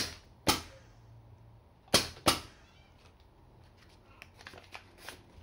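Four short ripping sounds in two quick pairs, as the paper backing is peeled off a strip of double-sided grip tape by hand. Light crinkling of the paper follows near the end.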